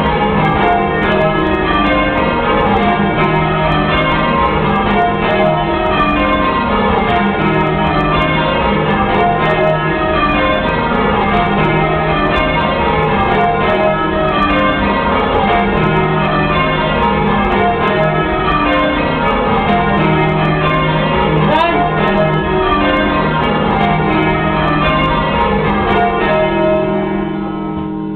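A ring of church bells rung full-circle in rounds, heard from the ringing chamber below: the bells strike one after another down the scale, over and over in an even rhythm, easing slightly in loudness near the end.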